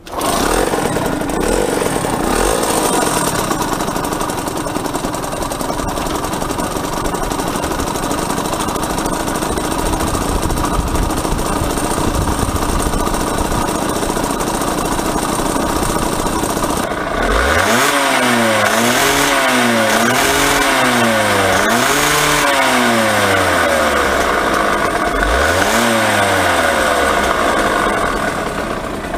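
Yamaha TZR50R's small 50cc two-stroke single-cylinder engine running, then revved in a series of about five throttle blips, each rising and falling in pitch, over its last third.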